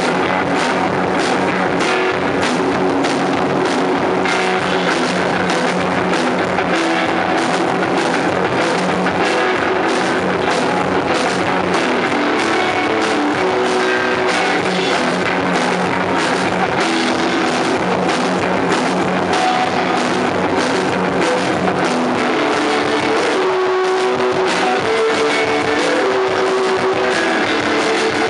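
Garage rock band playing live: electric guitar over a steady, driving drum kit beat.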